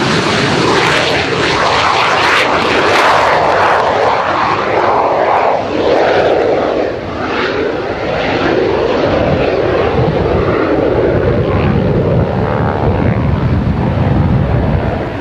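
De Havilland Vampire T11's Goblin turbojet at take-off power during the take-off roll: a loud, steady rushing jet noise, with a brief dip about seven seconds in.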